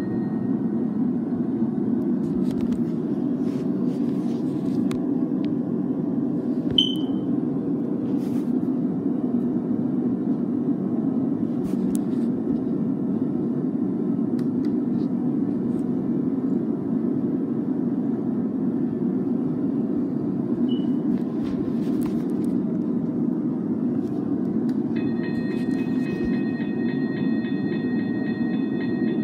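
Toy railroad crossing gate's speaker playing a steady train-passing rumble while the gate arm is down, with faint clicks. About 25 seconds in, a steady high electronic warning tone from the toy starts, and the gate arm is raised by the end.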